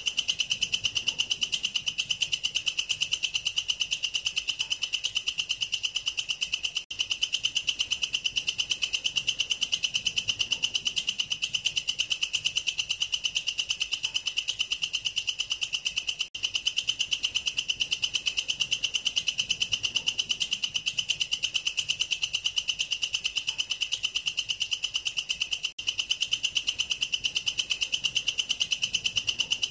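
Katydid (bush cricket, Tettigoniidae) stridulating: a continuous, very fast-pulsed, high shrill buzz that drops out for a split second three times.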